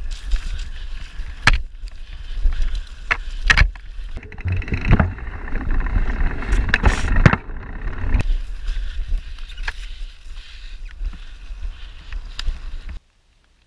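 Lapierre X-Control 227 mountain bike ridden down a dirt forest trail, heard from a camera on the bike: a steady rumble of wind and tyres on the ground, with sharp knocks and rattles from the bike over bumps. It gets louder and rougher in the middle, and the sound cuts off suddenly near the end.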